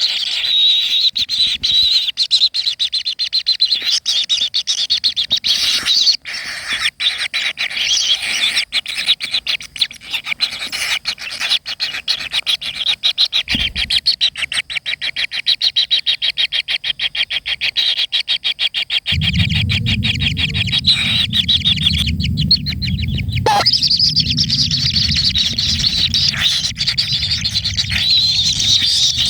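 Birds calling continuously in fast, rapidly repeated chirps and trills. About two-thirds of the way through, a steady low rumble comes in underneath and keeps going.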